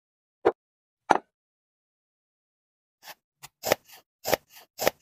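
Two sharp knocks, then a quick run of short chopping strokes, about four a second, as the axe-head blade of a wooden sausage slicer cuts through a sausage.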